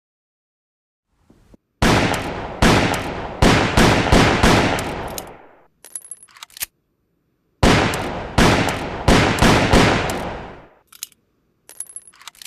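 Smith & Wesson Model 3 revolver firing two quick strings of about six shots each, every shot ringing out, the first string about two seconds in and the second about halfway. Short high metallic clicks and clinks come between the strings and near the end.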